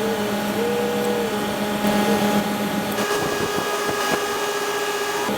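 A steady mechanical hum with a few held tones, like a small motor running, and a few clicks about three to four seconds in.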